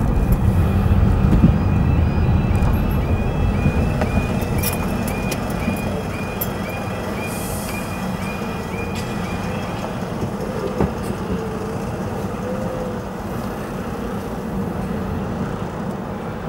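Level-crossing audible warning: a high electronic alarm tone repeating about twice a second while the barriers lower, stopping about nine seconds in. Under it runs the low rumble of an idling lorry engine, slowly fading.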